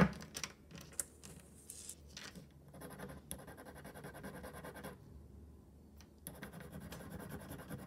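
A silver-toned necklace's metal bar being scraped back and forth on a black jeweler's test stone: faint, uneven scratching with small ticks, leaving a streak for an acid test of whether the piece is sterling silver. A sharp tap right at the start, and a short lull about five seconds in.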